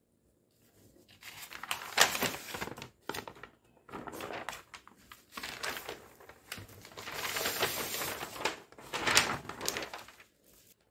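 Stiff brown paper pattern sheets rustling and crinkling as they are lifted and shifted by hand, in several bursts, the loudest about two seconds in and again near the end.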